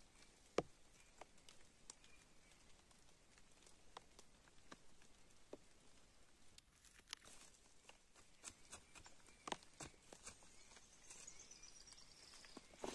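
Near silence with scattered small clicks and crackles of sticks and leaf litter being handled and shifted, the sharpest a single click about half a second in. A bird's faint high trill falls in pitch near the end.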